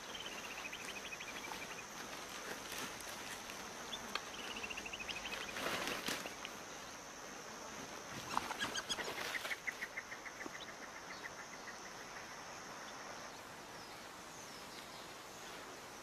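Natural outdoor ambience: a steady high drone of insects, with a bird's rapid trill that falls slightly in pitch three times (near the start, about four seconds in, and a longer one around nine seconds in). There are brief rustles and clicks around six and eight seconds in.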